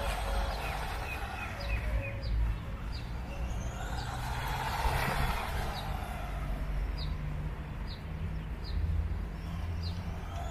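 A vehicle's running noise swells and fades about halfway through and again near the end, over a steady low hum, while birds chirp repeatedly in short high notes.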